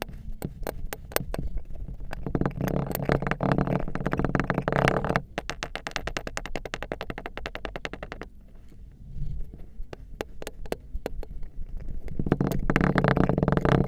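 Kinetic sand being squished and pressed, a run of fine crackling clicks, with two louder, denser stretches of squishing, about two seconds in and again near the end.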